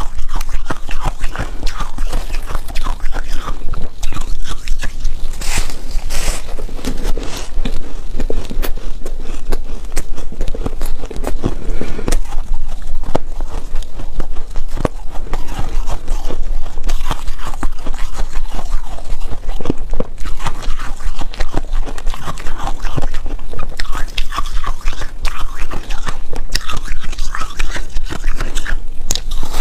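Close-miked chewing and crunching of foam ice: a dense, continuous crackle of ice breaking between the teeth.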